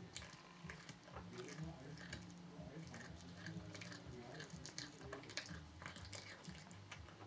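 A cat chewing on a whole chick: faint, irregular wet crunches and bites as it works the bones and flesh with its back teeth.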